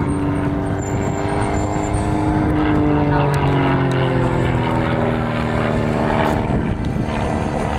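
Single-engine propeller aerobatic plane droning overhead during a smoke-trailing display manoeuvre. Its engine note slides down in pitch a couple of seconds in, then holds steady at the lower pitch.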